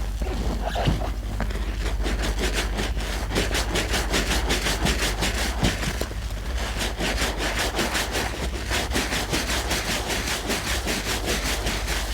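A sponge being squeezed and worked rapidly in thick soap lather, a wet squelching and rubbing at about four or five strokes a second.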